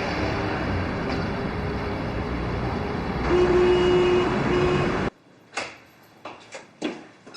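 Loud, steady rumbling of passing vehicle traffic, with a steady tone sounding for about a second some three seconds in and again briefly just after. The noise cuts off abruptly about five seconds in, and a few sharp knocks and clicks like a door being handled follow over quiet.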